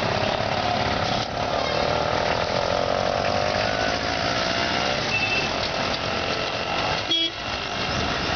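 Road traffic: vehicles passing and running, with a horn tooting. A sharp knock comes about seven seconds in.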